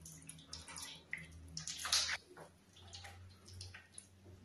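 Thick black soup poured from a metal pot onto a plate in irregular wet splats and glops, with a wooden spoon scooping the meat and leaves out. The loudest splash comes about two seconds in.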